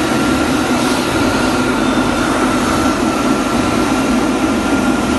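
Steady jet engine noise with a thin, high whine over a dense rush, heard on board a Northrop F-5 fighter flying in formation.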